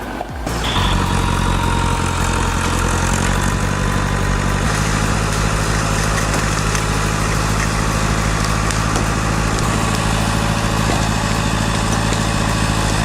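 Heavy diesel engine of a logging vehicle running steadily at a constant speed, setting in about half a second in, with a faint high whine over it through the first half.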